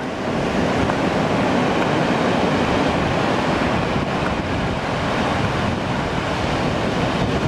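Ocean surf breaking and washing up the beach, heard as a steady rushing noise, with wind buffeting the microphone.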